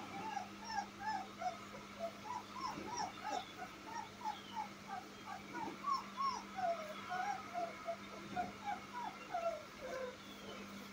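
A young puppy whimpering in a steady run of short, high, wavering squeaks, two or three a second, as it is held and given liquid dewormer from an oral syringe.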